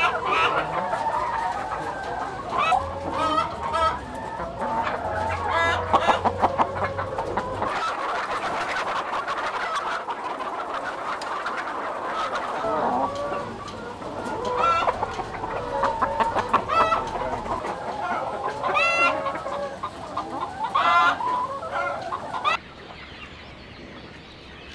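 A large flock of caged laying hens clucking and calling over one another, many birds at once. Near the end the clucking cuts off, leaving a quieter steady background.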